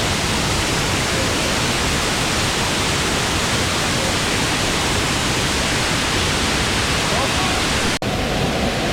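Waterfall rushing steadily: a loud, dense, even noise of falling water. It drops out for an instant about eight seconds in and comes back with less hiss.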